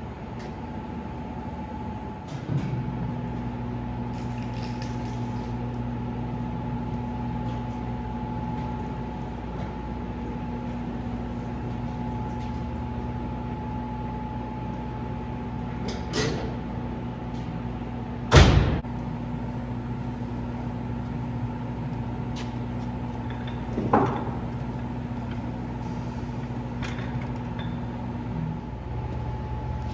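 A steady machine hum starts about two and a half seconds in and stops near the end, with three sharp knocks along the way, the loudest about eighteen seconds in.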